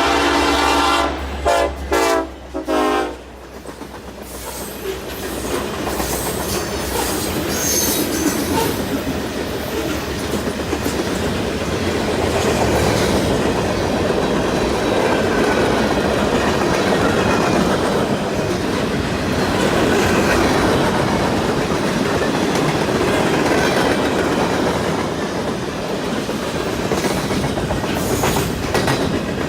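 Diesel locomotive horn sounding a quick string of short blasts that stops about three seconds in. A train then passes with a steady rumble and the clatter of wheels over the rails.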